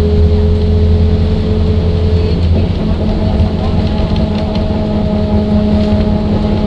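A motor vehicle driving along a road, heard from inside: a loud, steady engine rumble mixed with road noise. About two and a half seconds in, a steady whine gives way to a higher one.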